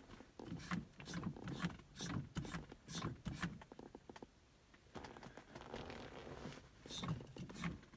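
Accelerator pedal of a Chrysler being pumped by a bare foot with the engine off: faint, rhythmic clicks and creaks from the pedal and throttle linkage, about two a second, with a short lull midway. The pumping primes the carburettor for a cold start.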